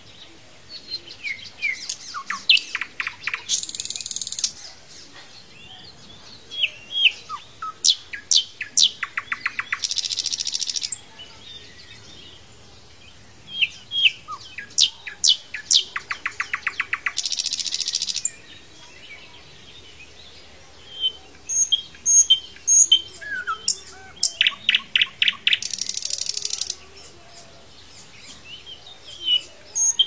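Canary singing: about four song phrases, each a few seconds of whistled notes and rapid trills ending in a harsh buzzy rattle, with short pauses between them.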